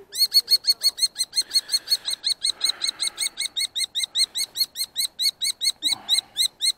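Common kestrel alarm-calling close by at its disturbed nest: a loud, fast run of sharp, repeated notes, about six a second.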